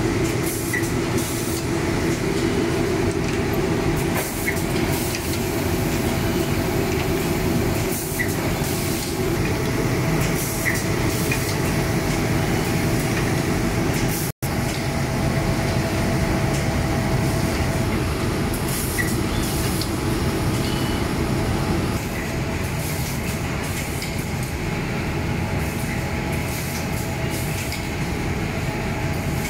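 Sock boarding and steaming machine running: a steady mechanical hum with a low droning tone, faint scattered clicks and short hisses. The sound cuts out for a split second about halfway through.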